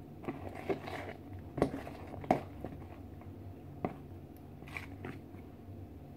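Wooden spoon stirring a thick cream cheese and butter mixture in a plastic mixing bowl, with scattered sharp clicks and knocks of the spoon against the bowl, most of them in the first half.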